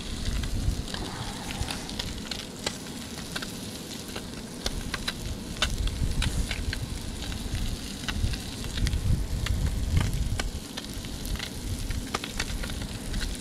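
A fish fillet frying in butter in a thin aluminium camp pan: a steady sizzle with frequent sharp pops and crackles, over a low rumble.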